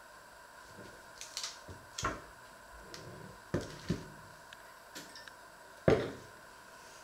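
Kitchen containers (a glass jar, a plastic tub, a tin) being picked up and set down on a wooden worktop: a handful of separate knocks and clatters, the loudest about six seconds in.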